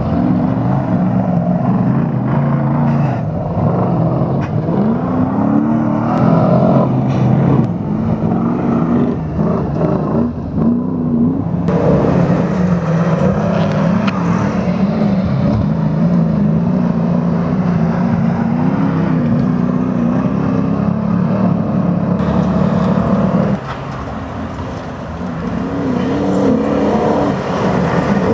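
Engines of GAZ-51 and GAZ-53 autocross race trucks revving hard under load on a dirt track, the pitch rising and falling as they accelerate and shift. The sound changes abruptly about twelve seconds in and turns quieter for a few seconds near the end.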